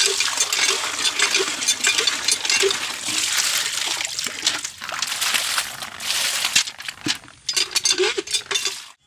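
Cast-iron hand pump being worked, water gushing from the spout and splashing into a metal bucket and over a hand being washed, with small metal clinks. The flow breaks off briefly about seven seconds in.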